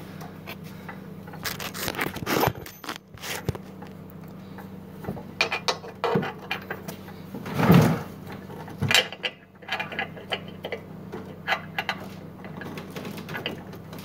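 Small bolt cutters and a soft-steel chain clinking and scraping as the jaws are set on a link and squeezed, with a heavier clunk about eight seconds in, over a steady low hum.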